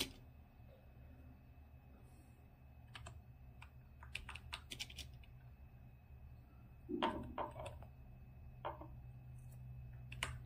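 Computer keyboard keys pressed one at a time as scattered clicks, with a quick run of several about four to five seconds in, over a faint steady low hum.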